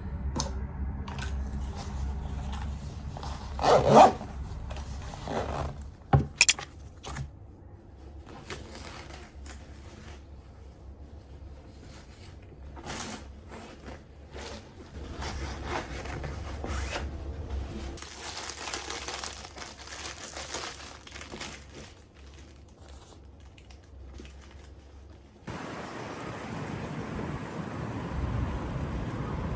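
Close handling noises in a small room: rustling and scraping with scattered clicks, and two louder knocks about four and six seconds in. A steady background hiss comes in near the end.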